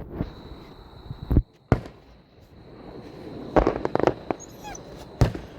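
Fireworks show: separate sharp bangs every second or so, with a quick burst of crackling in the middle.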